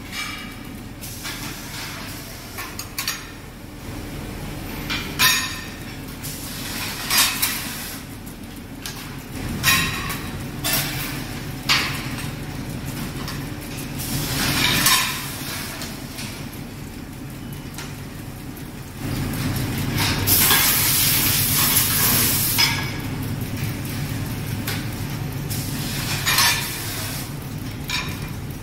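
Metal mould trays clinking and knocking as they are handled on a metal workbench, over a steady machine hum. About two-thirds of the way through, a loud hiss lasts for about two seconds.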